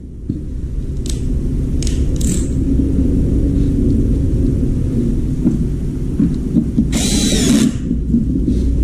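A steady low rumble with a few light clicks and knocks of handling, then about seven seconds in a cordless drill/driver whirs briefly, for about half a second, as it drives a screw into the washing machine's plastic door ring.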